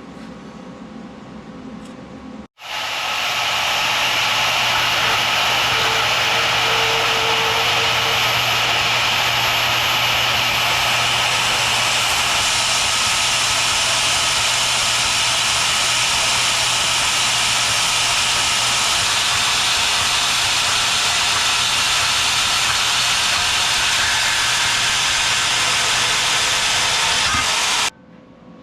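Power saw cutting through steel angle iron: a loud, steady hiss with a motor hum that starts suddenly about two and a half seconds in and stops abruptly near the end.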